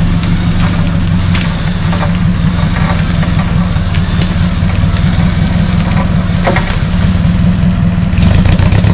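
Off-road 4x4's engine running steadily as it crawls through dense brush, with sharp snaps and cracks of branches and stems breaking against it. The sound gets louder near the end.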